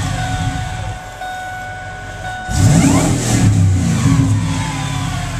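Supercharged 5.4-litre V8 of a Ford SVT Lightning pickup revved in park. The revs drop from a blip back to idle, then the engine is blipped again about two and a half seconds in and settles back down. A high whine rises and falls with the revs.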